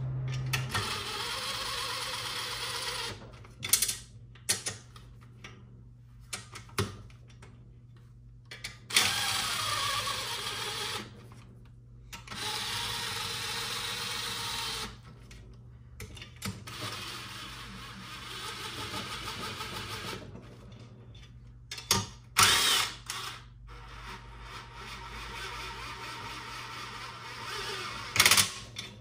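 A cordless power ratchet runs ARP case bolts down into an engine block in several whirring bursts of a few seconds each, with clicks and clinks of bolts and washers between them. The bolts are being run down only until they stop, not yet torqued.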